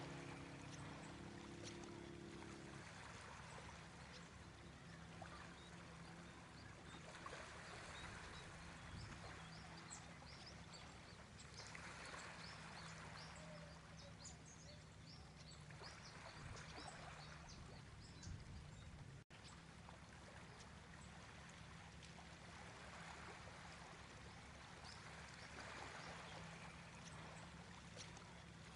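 Faint pouring of thick cold-process soap batter from paper cups into a loaf mold, in soft, intermittent spells over a low steady hum and hiss. The last notes of a music track end about three seconds in.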